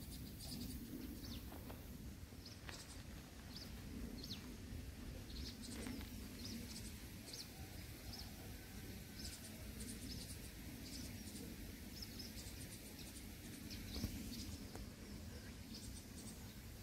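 Faint outdoor ambience: small birds chirping in short, high calls scattered throughout, over a low steady hum.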